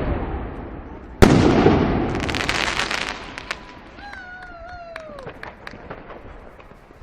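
New Year fireworks. One loud boom about a second in echoes away over the next couple of seconds under a dense crackle, after the tail of an earlier boom. A high whistle-like tone that falls off at its end follows, then scattered small pops.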